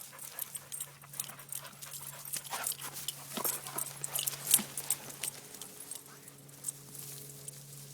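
Dogs panting and scuffling, with a rapid run of short crackling rustles, loudest about four and a half seconds in.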